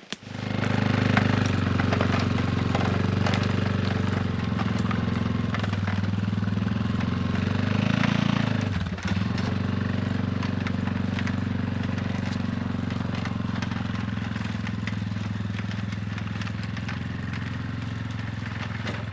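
A small vehicle's engine running steadily, its pitch and level dipping briefly about nine seconds in.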